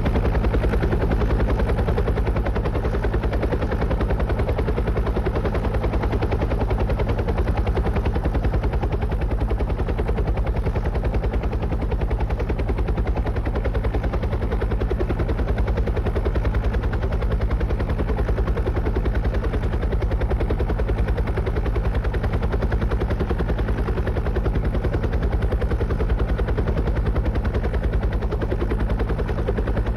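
Helicopter running steadily, its rotor blades beating in a fast, even chop over a steady low engine drone.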